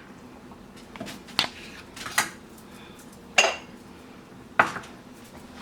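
Kitchen clatter: about five separate sharp knocks and clinks of utensils against dishes, the two loudest coming past the middle and near the end.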